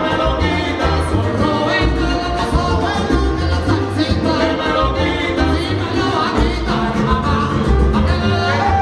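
Live salsa band playing, with singers' voices over a pulsing bass line and percussion.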